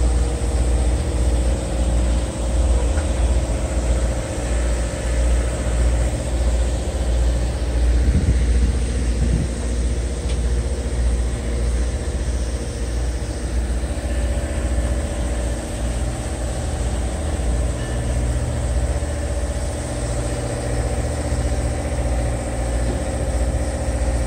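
Diesel-electric locomotive running steadily: an EMD GP38-2's 16-cylinder two-stroke engine gives a constant low drone with a pulsing rumble beneath it.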